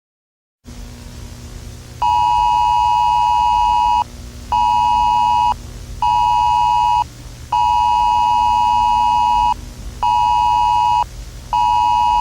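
Emergency Alert System attention tone, a steady two-pitch beep, sounded in a long-short-short pattern twice over a low steady hum. The beeps start about two seconds in, after a moment of dead silence.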